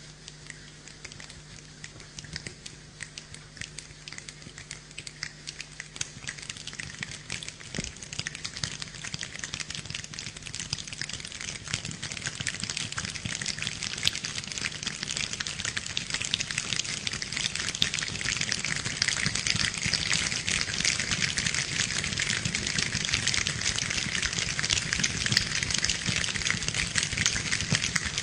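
A group of people imitating rain with their fingers and hands: a dense crackle of many small snaps and pats that grows steadily louder, from light drops toward a heavy downpour.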